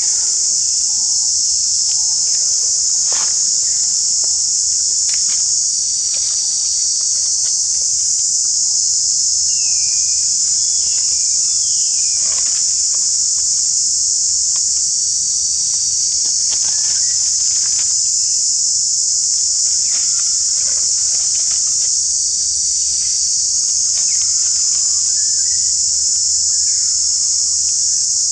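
Loud, steady, high-pitched drone of an insect chorus, with faint bird chirps now and then and a few soft clicks.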